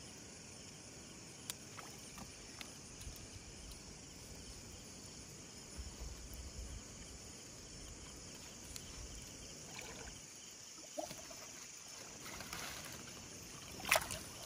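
Faint rustling and clicking as a wet cast net is handled over a steady outdoor hiss. Near the end comes a short loud splash as the net is dropped into shallow water.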